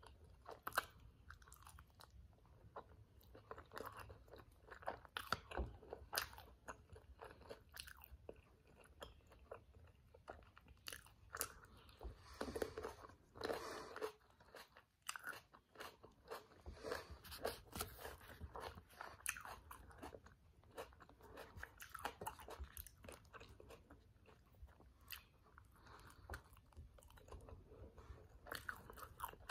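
A person chewing and biting a toasted tortilla wrap of black beans and vegetables, with irregular crunches and mouth clicks and a denser stretch of crunching around the middle.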